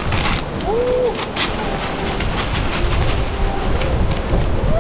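Charcoal clattering as it is poured from a paper sack into a steel mangal grill, over a heavy rumble of wind on the microphone. A brief rising-and-falling call sounds about a second in.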